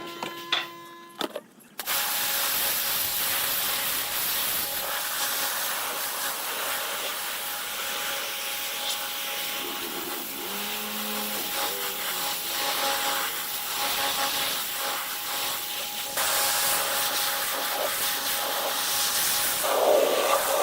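Wood being sanded: a steady, rough rasping hiss that starts about two seconds in, after a brief electrical hum.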